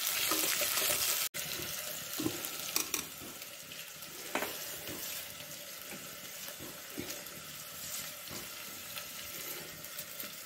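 Chopped onions sizzling in hot oil in a steel pot: a steady hiss that drops off suddenly about a second in and carries on quieter, with a few light clicks and knocks.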